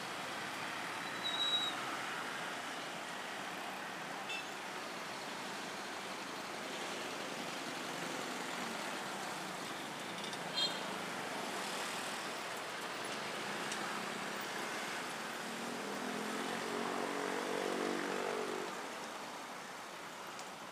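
Steady road traffic: cars, motorcycles and minibuses running past. A brief high sound comes about a second and a half in, a sharp click about ten seconds in, and a nearby vehicle engine grows louder for a few seconds near the end.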